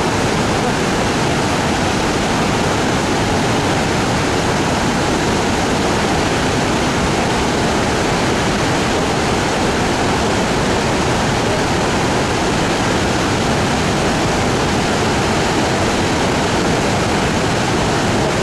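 Zambezi River water rushing over rocky rapids and pouring over the lip of Victoria Falls: a loud, steady rush of falling water that does not change.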